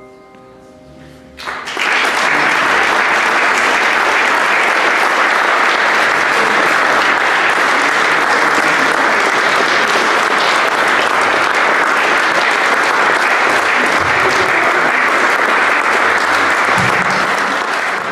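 An upright piano's final chord rings out and fades. About a second and a half in, an audience breaks into loud, steady applause.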